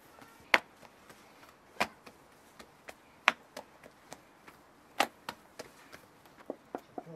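A series of sharp knocks: four loud ones about a second and a half apart, with lighter taps in between.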